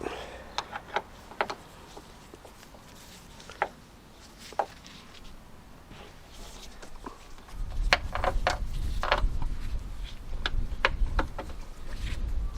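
Scattered clicks and knocks of hand tools and small metal parts being handled while taking apart a car door's window frame and lock fittings, a few at a time at first, then more often. About eight seconds in a low rumble comes in under them.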